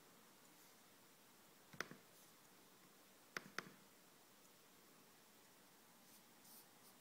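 Sharp clicks against near silence: a single click, then a quick double click about a second and a half later.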